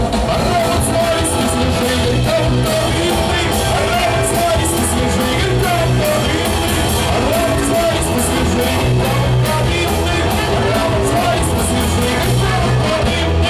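Live rock band playing loudly and continuously, with a voice singing over guitar, bass and drums.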